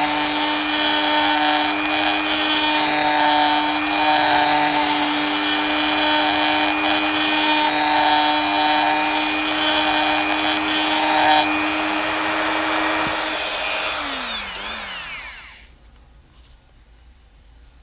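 Small high-speed rotary tool running steadily as it shaves the inside fender of a 1:64 diecast car body. Near the end it is switched off and its pitch falls as it winds down to a stop.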